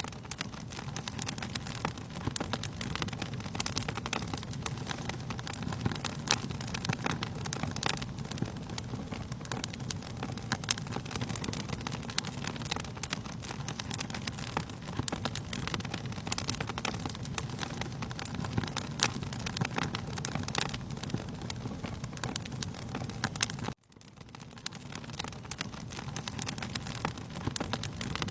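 Wood fire in a fireplace crackling, with a steady low rush of flame and frequent sharp pops and snaps. About 24 seconds in, the sound cuts out for a moment and fades back in.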